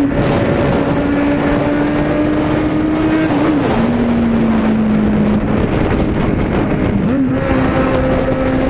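Suzuki Bandit 650N inline-four engine running loud at riding speed. Its note climbs slowly, drops and picks up again twice as the throttle changes, about three and a half seconds in and again near seven seconds. Wind rushes over the microphone throughout.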